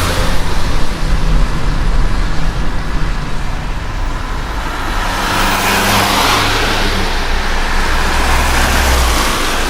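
Car driving in the rain: a steady low engine and road drone under wet hiss, with a swell of hiss that builds about halfway through and fades again.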